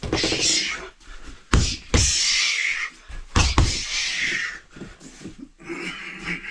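Gloved punches hitting a homemade tape-wrapped mook jong trapping dummy: four sharp hits in two quick pairs, the first pair about a second and a half in and the second just past three seconds. Long hisses of noise fill the gaps between and around the hits.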